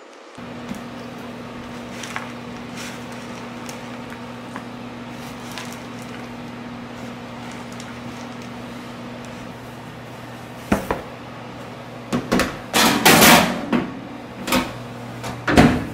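Steady low hum of a kitchen oven running, with scattered light clicks. In the last few seconds a metal baking tray of baked granola is handled: several knocks and a loud scraping rustle.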